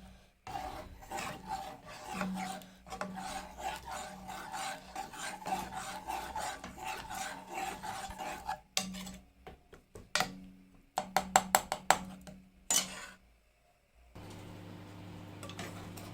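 Rapid, continuous scraping and rubbing of a utensil against a cooking pot for several seconds, then a few sharp clicks. Near the end there is a steady low hum.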